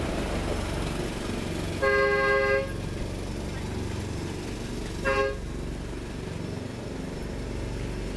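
Miniature railway locomotive sounding its horn twice: a toot of under a second about two seconds in, then a shorter one about three seconds later, over the low rumble of the train running.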